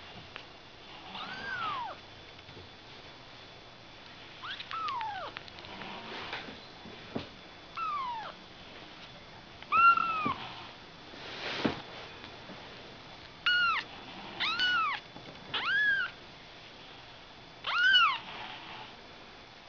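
Ragdoll kittens mewing repeatedly: about ten short, high-pitched mews that rise and fall in pitch, coming faster in the second half. There is a brief knock about two-thirds of the way through.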